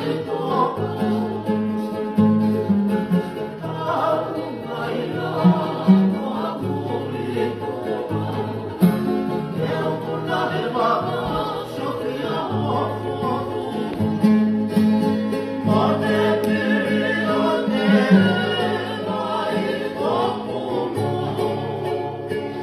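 A group of men singing together in harmony, with strummed acoustic guitars and a ukulele accompanying them.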